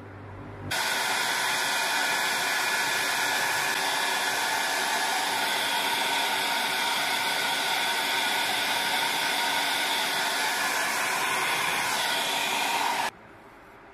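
Hair dryer blowing steadily. It switches on about a second in and cuts off suddenly near the end.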